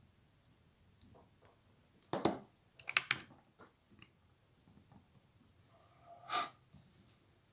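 Handling noises: a sharp knock about two seconds in, a quick cluster of clicks about three seconds in, and another short knock near six seconds.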